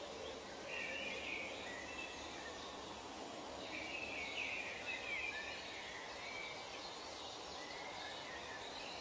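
Tropical forest ambience: birds giving short gliding calls, in clusters about a second in and again from about four to five seconds in, over a steady background hiss.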